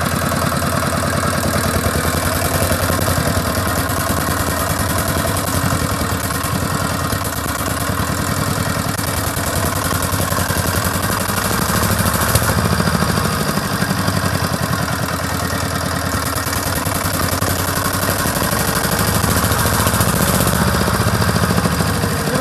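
Quad bike engine running steadily, its speed rising and falling slightly, a little louder about halfway through and again near the end.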